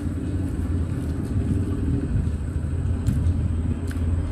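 A steady low rumble, with a few faint clicks about three and four seconds in.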